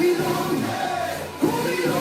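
Music with a group of voices singing a sustained melodic phrase, a new phrase starting about one and a half seconds in.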